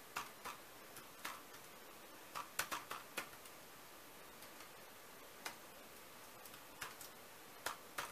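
Computer keyboard keys clicking faintly as text is typed, in irregular bursts: a quick run of keystrokes about two and a half seconds in, then a few scattered taps after a pause.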